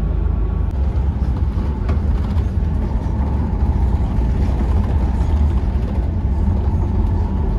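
Steady low rumble inside a moving bus's passenger cabin: engine drone mixed with tyre and road noise at cruising speed.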